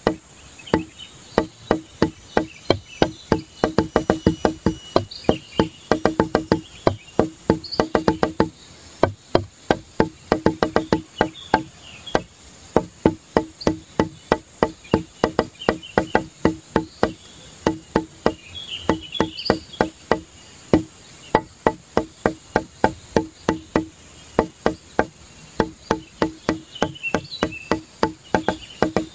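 Background music made of fast, rhythmic wood-block-like clicks with a low knock under each, several strokes a second, with faint high chirps now and then.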